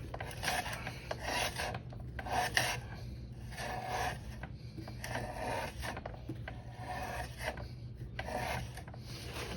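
Zero SR electric motorcycle's rear wheel being turned with a brake pad rubbing on the disc: a rasping scrape that comes and goes in repeated short bursts. This is the sign of a dragging rear brake pad.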